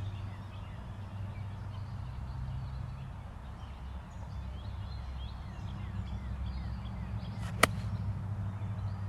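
A golf club striking a golf ball once, a single sharp click on a short approach shot, about three quarters of the way through. Under it runs a steady low hum, with faint high chirps.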